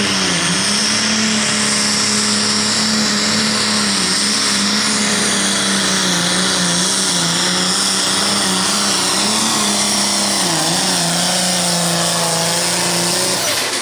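International Harvester pulling tractor's turbocharged diesel engine running flat out under load as it drags a weight-transfer sled. The engine note holds nearly steady with a few brief dips, then the engine is throttled back near the end as the pull finishes under the checkered flag.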